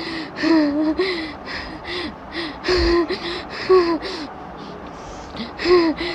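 A woman gasping and whimpering in fear: quick, shaky breaths, each with a short voiced whimper, about two a second, with a brief lull near the end.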